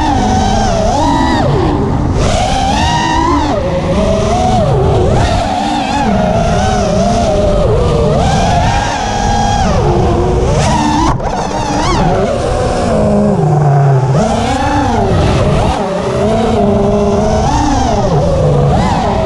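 Electric motors of an FPV racing quadcopter whining, the pitch rising and falling constantly with the throttle as it flies.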